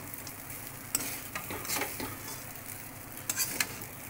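Spatula stirring and tossing rice in a metal kadai over a steady low sizzle, with several sharp scrapes and clicks of the spatula against the pan.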